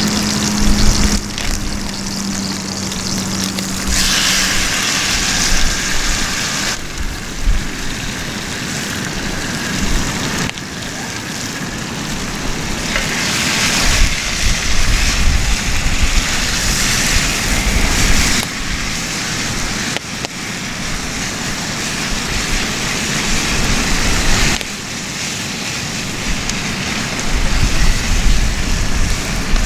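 Food sizzling in a cast iron Dutch oven over a wood campfire as it is stirred with a wooden spatula: a steady hiss with crackle. Wind rumbles on the microphone underneath.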